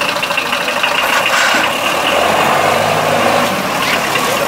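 Mercedes-Benz Unimog's diesel engine running at low speed as the truck crawls over rough off-road ground.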